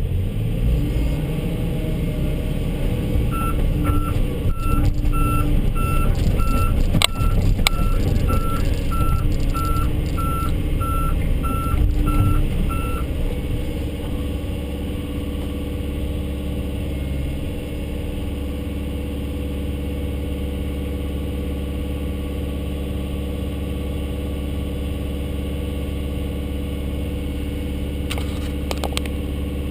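Vehicle backup alarm beeping at a steady pace, about one and a half beeps a second, for about ten seconds, over the steady rumble of a heavy diesel engine, which then runs on alone.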